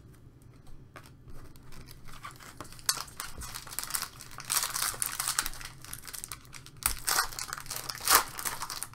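Foil trading-card pack wrapper crinkling and tearing as it is pulled open by hand, starting about three seconds in, with a few sharper rips, the loudest near the end.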